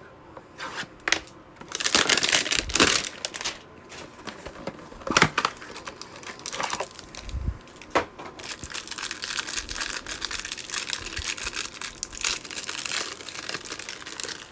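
Packaging of a trading-card hanger box being torn and crinkled open, in bouts: a loud stretch about two seconds in, a sharp tear near the middle, and a longer run of continuous crinkling toward the end.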